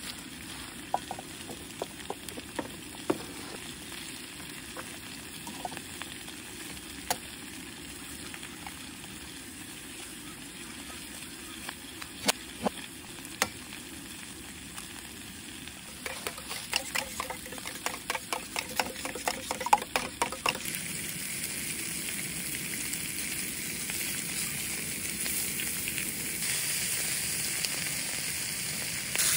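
Sausages frying in a hot cast iron skillet on a gas camping stove. Faint crackles and scattered pops come first, then a quick run of sharp spattering pops about halfway through. After that a steady sizzle builds and grows louder toward the end.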